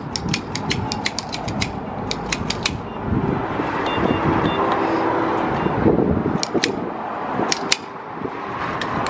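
Car being refuelled at a gas pump: quick clicks and rattles from the nozzle and handle, a few short beeps from the pump about four seconds in, then the steady rushing of fuel flowing into the tank.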